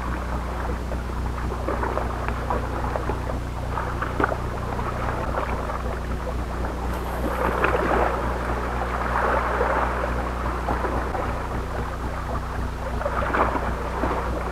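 Wind rumbling on the microphone over sea waves washing against the shore rocks, the surf swelling louder about eight to ten seconds in and again near the end.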